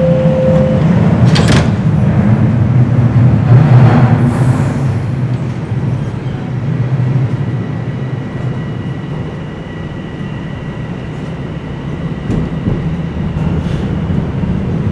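The last note of a subway door-closing chime, then a TTC Line 1 subway train pulling out and running, its low rumble heaviest over the first few seconds with sharp knocks at about one and a half and four seconds. The rumble then eases, with a faint steady whine from about six to twelve seconds.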